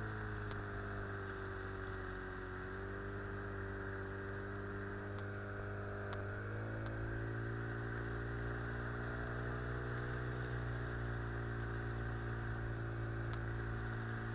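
Small outboard motor driving an inflatable boat, running steadily. Its pitch sags slightly about two seconds in and rises again at about six and a half seconds as the throttle changes.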